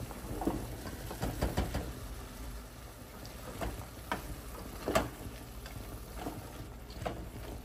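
Pot of zucchini, tomato and onion cooking on a gas stove: irregular sizzling crackles and pops, with a few sharp clicks, the loudest about five seconds in.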